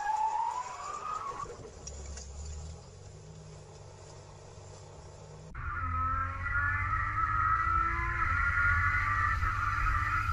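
Quiet car-cabin sound with a brief rising high tone at the start. About five seconds in, it cuts to a race car's engine running hard at high revs, with heavy low rumble from the hood-mounted camera.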